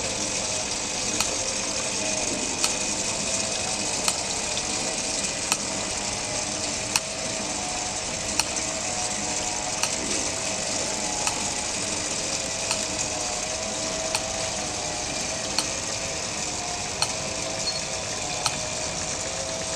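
Water trickling steadily through the pond and small water wheel of a moving nativity display, with a sharp click about every one and a half seconds from the display's mechanism.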